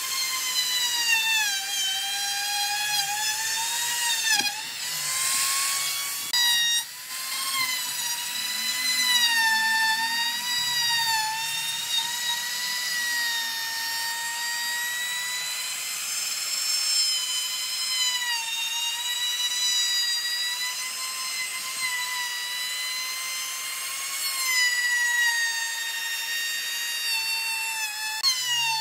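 Handheld trim router running at high speed as its bit rounds over the edges of a wooden chair armrest, a high whine that wavers in pitch as the cut loads and frees the motor.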